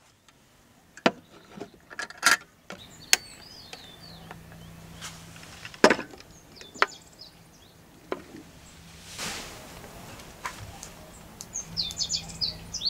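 Camping gear being handled and set down on a wooden table: a scattering of sharp knocks and clicks, with birds chirping in the background a few seconds in and again near the end.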